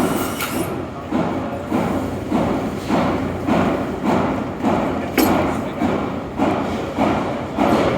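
A steady run of thuds, a little under two a second, each dying away with a short ringing tail.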